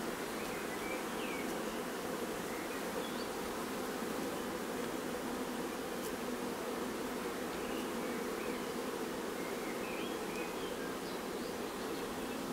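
Honeybees buzzing in a steady, even drone.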